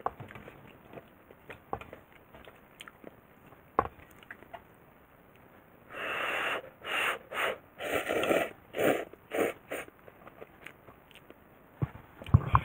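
A person slurping ramen noodles from a hangō mess tin: a quick run of loud slurps about halfway through, lasting about four seconds. Light clicks come before it, and a few sharp knocks near the end.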